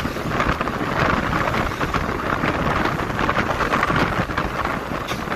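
Wind buffeting the microphone of a camera travelling at road speed, over a steady rumble of road and engine noise.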